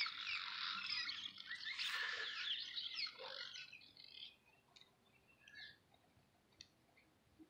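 Small birds chirping in a busy, overlapping chorus of quick high chirps that thins out after about three and a half seconds to a few scattered chirps.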